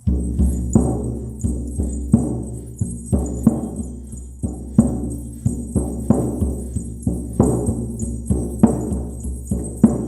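Shaman's frame drum struck with a beater in a steady beat of about three strokes a second, each stroke ringing on deep and low.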